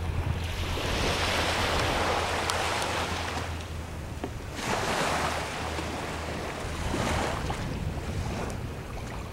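Small waves washing in over a rocky, seaweed-covered shoreline, swelling about three times, with wind on the microphone and a steady low rumble underneath.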